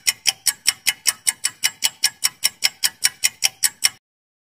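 Clock-ticking sound effect of a quiz countdown timer: quick, even ticks, about five a second, cutting off suddenly about four seconds in as the countdown runs out.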